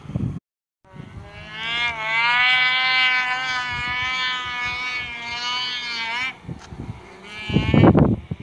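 A sled's engine, heard from a distance, running at high revs in a steady drone. Its pitch wavers slightly and it stops about six seconds in, followed by a short loud burst of noise near the end.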